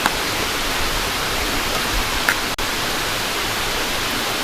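Steady rushing noise that spreads evenly from low to high, with one faint click about two seconds in.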